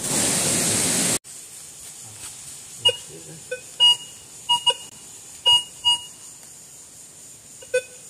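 Metal detector giving about eight short beeps at one pitch as its coil is swept over the ground. It opens with a loud hiss that cuts off suddenly about a second in.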